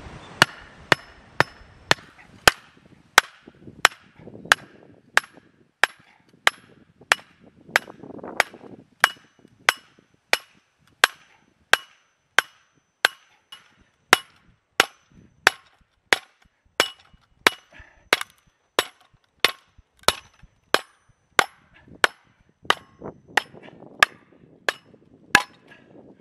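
Hammer blows on top of a log set on the blade of a ring-frame kindling splitter: sharp knocks with a slight ring, about three every two seconds, driving the log down onto the blade until it splits.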